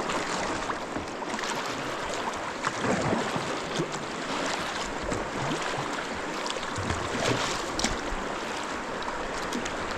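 Steady rush of river current flowing past the kayaks, with a few small splashes.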